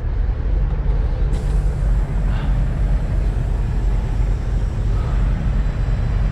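Semi truck's diesel engine running steadily at low revs, a constant deep rumble.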